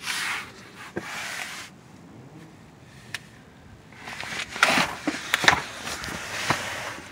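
Scraping and rustling from someone getting under a pickup truck, with handling noise on the camera and a few sharp clicks. The noise comes in two stretches, one at the start and a louder one from about four seconds in.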